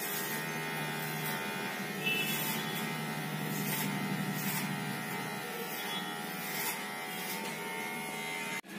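Electric hair clipper buzzing steadily as it trims a customer's hair. The sound breaks off abruptly near the end.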